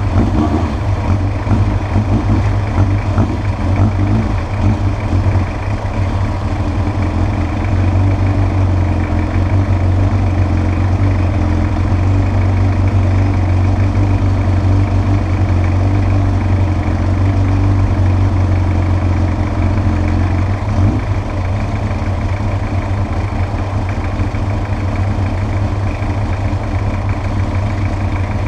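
Yamaha XJ600S Diversion's air-cooled inline-four, fitted with a Devil exhaust, idling steadily with a deep, even note. The note wavers a little in the first few seconds, and there is a short change about twenty seconds in.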